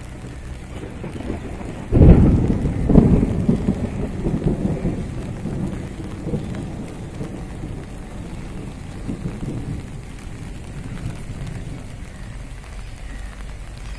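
Rain falling, then a sudden thunderclap about two seconds in that rumbles on and fades away over the next few seconds.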